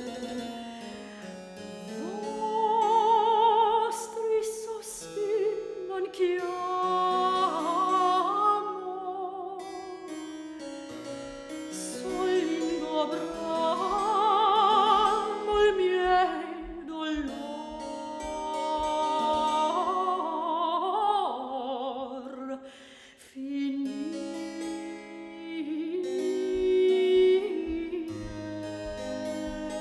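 Soprano singing an early Baroque Italian lament with vibrato, accompanied by harpsichord, with a short break between phrases about three-quarters through.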